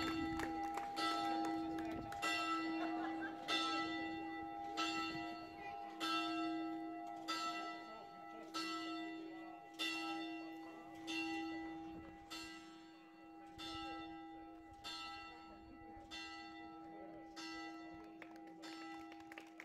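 Single chapel bell tolling, one stroke about every one and a quarter seconds, each stroke ringing on into the next over a lasting hum; the ringing grows gradually fainter.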